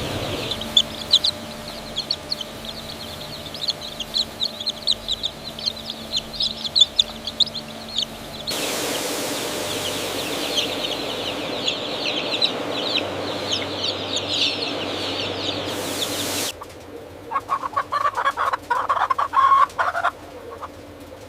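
A flock of broiler chickens peeping, a dense chorus of many short high chirps; a steady hiss joins it through the middle stretch. From about three quarters of the way in, a few lower, louder clucking calls.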